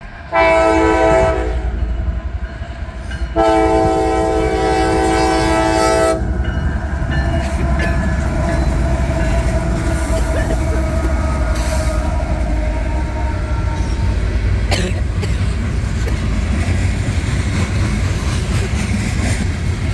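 Diesel locomotive's multi-note air horn sounds a short blast and then a long one, the close of the grade-crossing warning signal. Then the locomotives and loaded coal hopper cars rumble steadily past, with wheels clicking over the rail joints.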